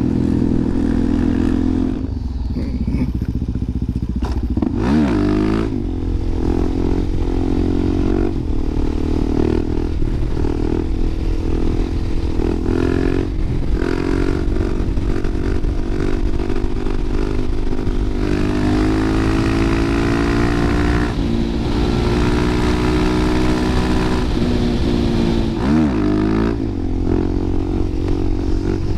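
Suzuki DR-Z400SM's single-cylinder four-stroke engine running steadily under way. Twice, about five seconds in and again near the end, the revs drop sharply and climb straight back.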